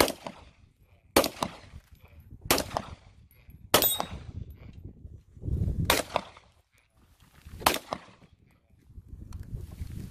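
Gunshots from firearms being fired on the range: three sharp reports about a second and a quarter apart, then another a few seconds later, each followed by a brief echo.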